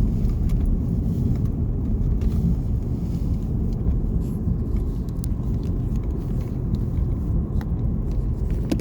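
Car driving along a road: a steady low rumble of engine and tyre noise, with a few faint ticks.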